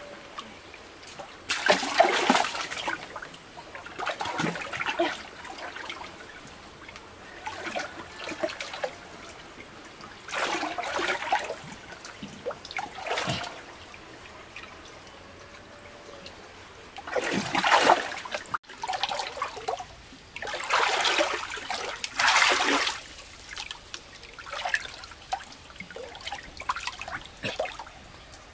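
Water splashing and trickling in repeated irregular bursts, each about a second long, every few seconds.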